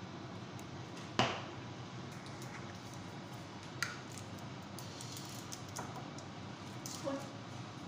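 A few light knocks and clicks of kitchen handling over a steady background hiss: one sharp knock about a second in is the loudest, then a smaller click and a couple of faint ones later.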